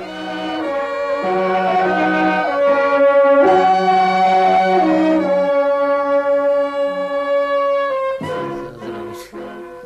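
Incidental music from a radio play: long held chords that change step by step, dying away about eight seconds in.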